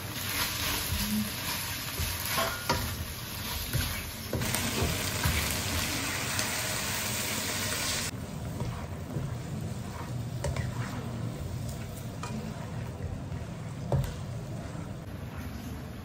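Chicken pieces and chilli bean paste sizzling in a wok while a spatula stirs them, with clicks and knocks of the spatula on the pan. About halfway the sizzle drops off sharply as warm water goes in, leaving a quieter simmer with occasional spatula clicks and one louder knock near the end.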